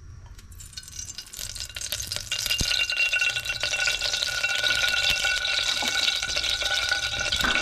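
Cooking oil heating in a steel pot over a gas flame, sizzling and crackling. The sizzle builds over the first couple of seconds and then holds steady.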